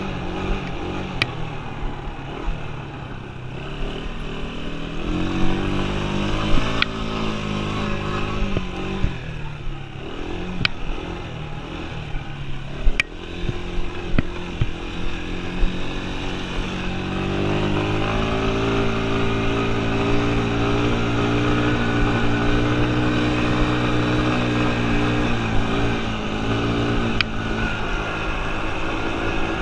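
Yamaha Breeze 125 quad's single-cylinder four-stroke engine running while being ridden, its pitch rising and falling with the throttle through the first half. From a little past the middle it is held at a steadier, louder run. A few sharp knocks sound over the ride.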